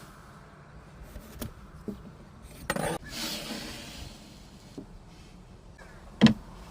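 Workshop handling of wood and tools: a few light taps, a short scrape a little under three seconds in, and one sharp knock near the end, the loudest.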